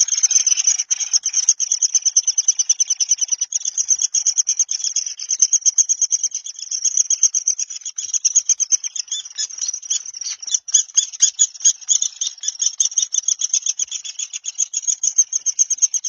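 Insect stridulation: a continuous, high-pitched, rapidly pulsing trill that keeps a steady pitch and rhythm throughout.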